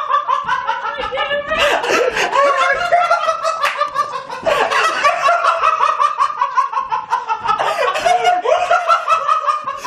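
People laughing hard, in several long runs of rapid, pulsing laughter that slide down in pitch, one after another with only brief breaks.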